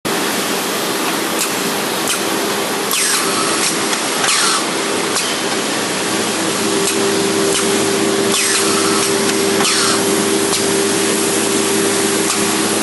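Automatic angle drilling machine running: a steady motor hum under a loud hiss, with several short sweeps that drop in pitch as it cycles.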